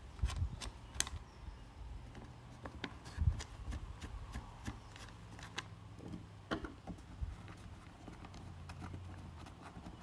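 Faint, irregular small clicks and taps of security screws being unscrewed from a wooden panel and handled.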